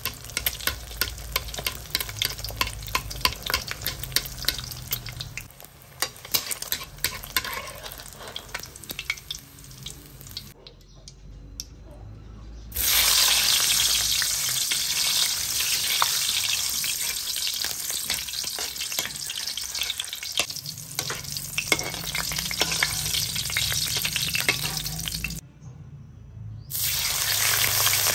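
Food frying in hot oil in a wok. An egg fries first with dense crackling and popping spatter. After a short quieter break there is a loud, steady sizzle as hotdogs fry.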